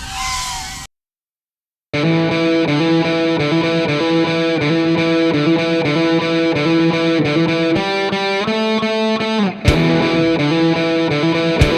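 Rock background music with distorted electric guitar, starting about two seconds in after a second of dead silence. Before the silence, a brief whine that glides in pitch is cut off abruptly.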